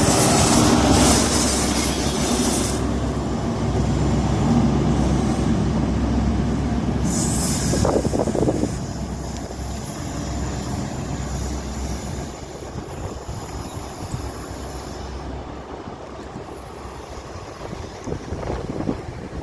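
A Great Western Railway train running on the track, its rumble dying away steadily as it draws off.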